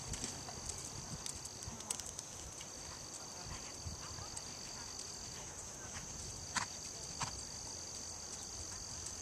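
Steady high-pitched insect chirring in two held tones; the lower one breaks off and resumes a couple of times. Under it come faint hoofbeats of a horse trotting on arena sand, and two sharp clicks about two-thirds of the way through.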